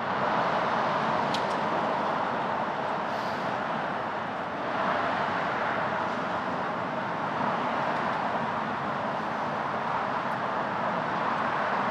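Steady rushing noise while cycling through city streets: wind and road noise with traffic, dipping slightly and swelling again about five seconds in.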